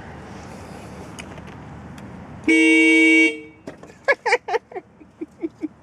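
A car horn honks once, about two and a half seconds in: a steady two-tone blast lasting nearly a second, over a background of traffic noise. It is followed by a quick run of short chirping calls.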